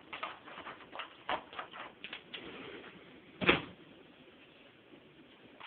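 A cutting board and knife being got out and handled in a kitchen: a run of small clicks and knocks, then one louder knock about three and a half seconds in.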